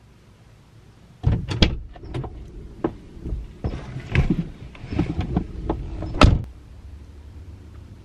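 A person climbing into a car's driver seat: rustling, bumps and knocks against the seat and door, starting suddenly a little over a second in and ending with a sharp, loud thud about six seconds in.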